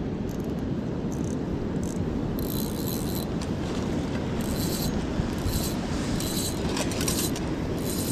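Steady rush of flowing river water and wind, with short rustling and scraping sounds every second or so from about two seconds in.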